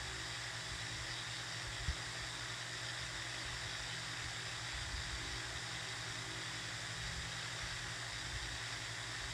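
Steady background hiss with a low hum underneath, and a single soft knock about two seconds in.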